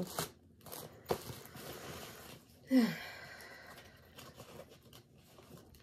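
Light handling of a clear plastic bag and small items: soft rustling and a couple of small clicks, with a short falling voice sound, like a sigh, about three seconds in.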